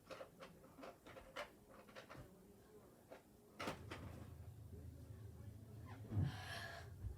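Scattered light knocks and clicks of household objects being handled, with a sharper knock about halfway through and a short rustle near the end.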